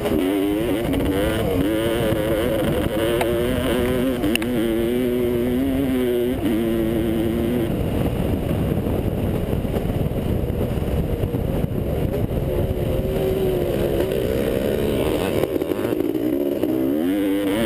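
1985 Honda CR500's two-stroke single-cylinder engine under race load, heard from on board the bike: the pitch climbs and drops as it revs through the gears and holds steady for a few seconds. It then goes rougher under a steady rumble of wind and track noise before revving up and down again near the end.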